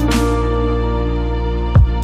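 Background music: slow, sad music of sustained held chords, with a deep falling boom near the end.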